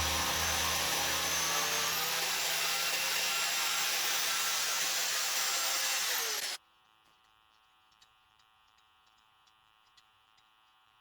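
Electric chainsaw running as it rips a log lengthwise in a chainsaw sawmill, a steady buzzing, rasping cut that stops abruptly about six and a half seconds in. After that, near silence with a faint hum and a few faint ticks.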